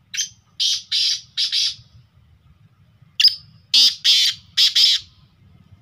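Male black francolin (kala teetar) calling twice, each call a short note followed by four harsh, grating notes lasting about a second and a half.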